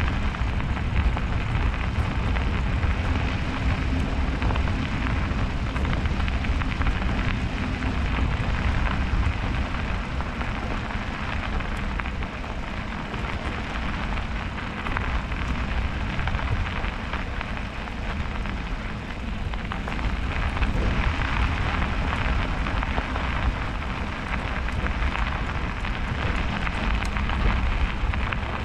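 Steady crackling noise of bicycle tyres rolling through fresh snow, with a low rumble of wind on the microphone from riding.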